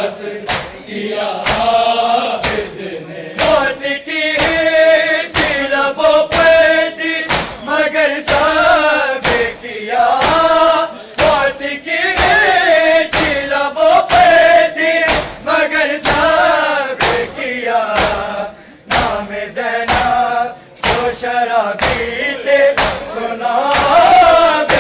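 Men's group chanting an Urdu noha, a Shia lament, over a steady beat of matam: bare hands slapping bare chests in unison.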